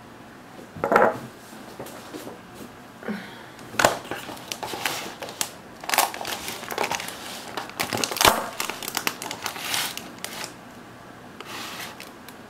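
Irregular crinkling, crackling and clicking handling noises close to the microphone as the camera and a paper plate are shifted about. There is one burst about a second in, then a busy run of sharp crackles from about four to ten seconds in.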